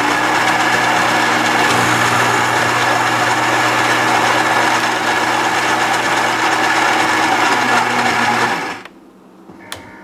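Gaggia Brera super-automatic espresso machine's built-in grinder grinding the coffee beans for a shot, a steady motor whir that stops about nine seconds in.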